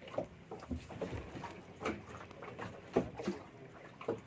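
Small open boat at sea: water slapping at the hull, with a string of short knocks and brief sounds as a fisherman hauls a hooked fish in hand over hand on a handline.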